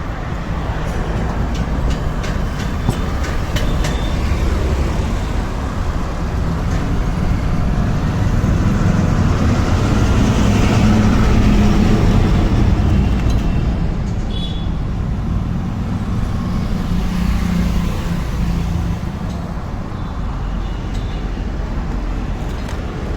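Motor vehicle engine rumble, swelling to its loudest about halfway through and easing off again.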